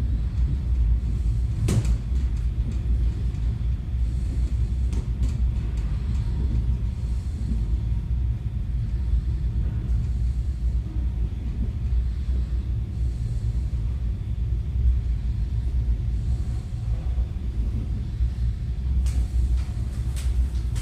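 Electric commuter train running, heard from inside the carriage: a steady low rumble, with a few sharp clicks about two seconds in, around five to six seconds in and near the end.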